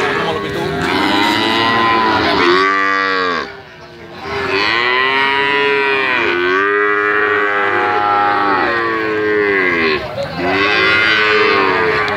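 Calves mooing in long, drawn-out calls that swell and fall in pitch, one after another, with a short pause about three and a half seconds in.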